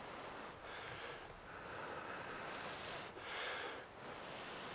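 Soft breaths blown onto a glowing char cloth ember to nurse it, three gentle airy puffs, the middle one the longest.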